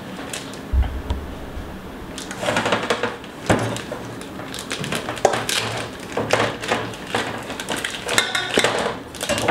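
Kitchen handling noises: scattered light knocks, clatter of dishes and rustling, with a low thump about a second in and a brief squeak near the end.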